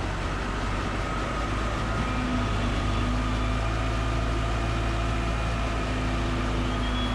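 Heavy diesel engine running steadily at a low rumble, with a faint steady whine above it.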